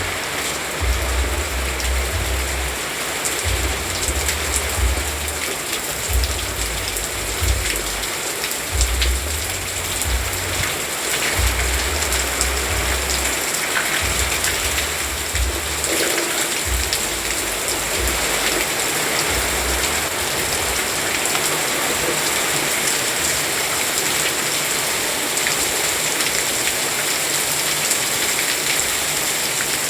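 Steady, heavy rain falling and pattering on surfaces. A deep low rumble comes and goes underneath for the first twenty seconds or so, then fades.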